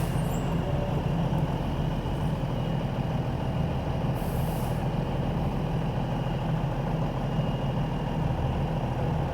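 Heavy diesel truck engine running steadily while it manoeuvres its trailer around, with a short air hiss about four seconds in.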